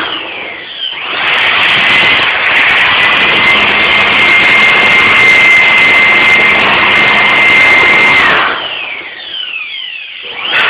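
Handheld electric blower running, blowing dust out of an opened CRT monitor: a loud steady rush of air with a high motor whine. It starts about a second in and switches off a little after eight seconds in, the whine sliding down as the motor spins down.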